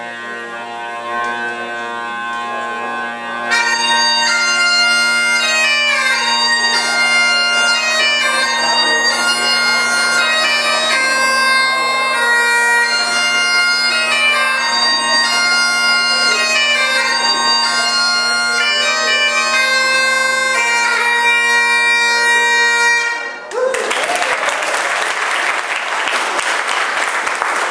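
Great Highland bagpipes: the drones sound a steady chord, and the chanter takes up an ornamented tune about three seconds in. The tune cuts off about 23 seconds in and applause follows.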